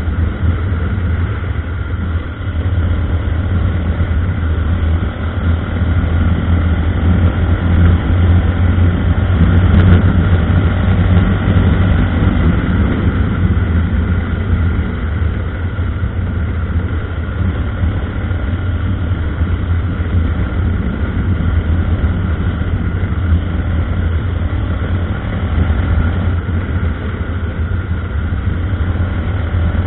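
Honda NX 350 Sahara's single-cylinder engine running under way at speed, a steady low drone that swells briefly about ten seconds in.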